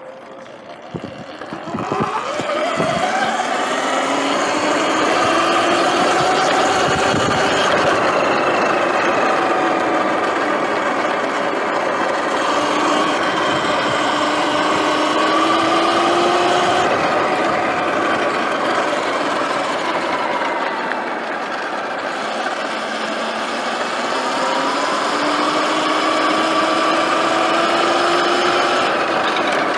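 Sur-Ron Light Bee X electric dirt bike being ridden off-road: the electric motor and drive whine, rising and falling in pitch as the bike speeds up and slows, over a steady rush of wind and tyre noise. A few knocks come near the start as it gets going.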